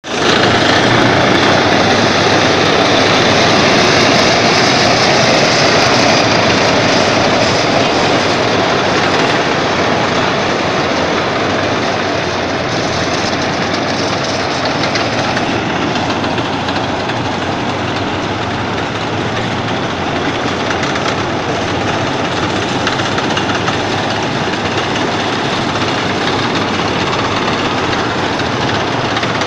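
A column of M-84 main battle tanks driving past on a city road: diesel engines running and steel tracks clattering on the asphalt in one dense, steady noise, loudest in the first several seconds.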